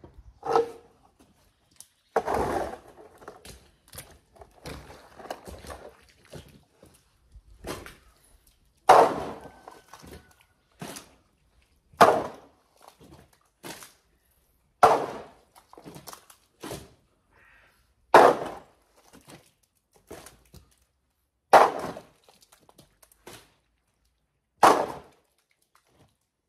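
A shovel scraping wet manure off a concrete floor and tipping loads into a metal wheelbarrow: a series of sharp thuds with fainter scrapes between, the loud hits coming about every three seconds from about a third of the way in.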